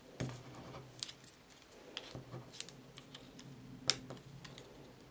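Light, scattered clicks and taps of hands handling a plastic glue bottle and small glitter stars on a card, with one sharper tick about four seconds in.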